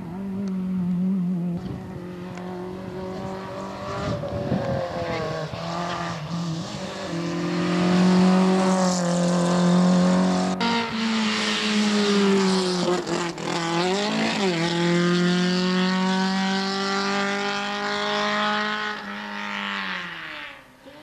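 Rally car engines at full throttle on a tarmac stage, revving hard and climbing in pitch, with sudden drops at each gear change and a falling note near the end as a car lifts off and moves away.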